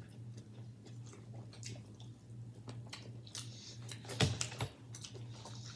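Close-up mouth sounds of people chewing seafood boil, with wet smacking and small clicks over a steady low hum, and a louder sharp knock about four seconds in.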